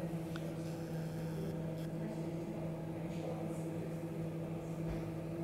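Steady low hum of room tone, with a fainter higher tone above it and a few faint ticks.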